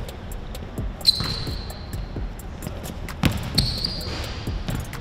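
Basketball bouncing on a hardwood court, a handful of separate dribbles, with short high sneaker squeaks on the floor about a second in and again past three seconds in.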